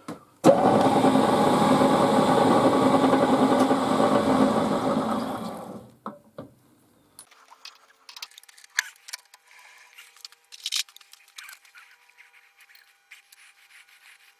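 An electric workshop machine motor starts, runs steadily for about five seconds and winds down, followed by light metallic clicks of tools being handled.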